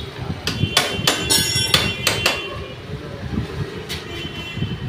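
Hammer blows on a Honda Aviator scooter's main axle, driving the greased axle back in through new bushes: about five sharp metal-on-metal strikes with a short ring in the first two and a half seconds, then one lighter tap near the end.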